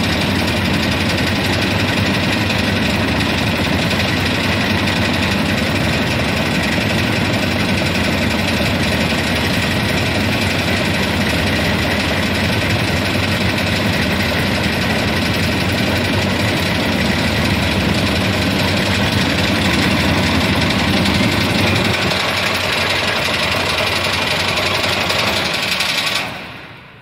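Stainless-steel peanut cutting machine running with its vibrating grading sieve: a loud, steady mechanical rattle and hum. The noise cuts off sharply about a second before the end as the machine stops.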